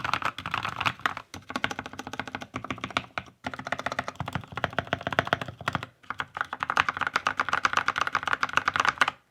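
Keychron K6 mechanical keyboard with NovelKey Cream linear switches, typed fast in repeated runs of the home-row keys (asdfjkl;). There are brief pauses about a second, three and a half seconds and six seconds in, and the typing stops just before the end.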